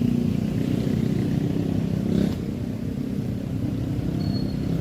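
A motor engine running steadily, with a short click about two seconds in, after which the engine sound drops slightly.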